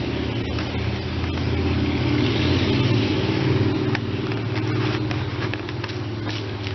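A steady low motor hum that swells louder a couple of seconds in, with a few light clicks.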